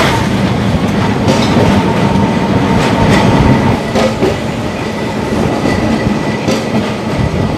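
Electric street tram running along its track, heard from aboard: a steady rumble with irregular clicks of the wheels on the rails and a faint steady whine. The sound cuts off abruptly at the end.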